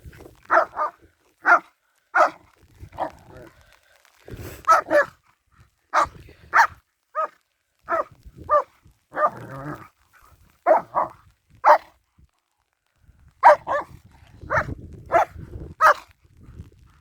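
A dog barking repeatedly: about twenty short, sharp barks, often in quick pairs or clusters, with brief pauses between the runs.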